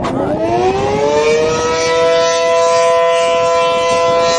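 American Signal (ACA) Allertor 125 outdoor warning siren winding up. Its pitch rises over about a second and a half, then holds a steady, loud two-tone chord.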